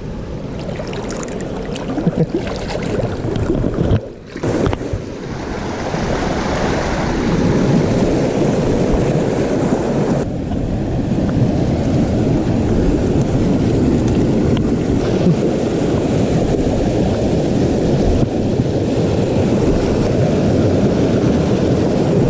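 Creek water rushing steadily, loud and close, with a brief drop in level about four seconds in.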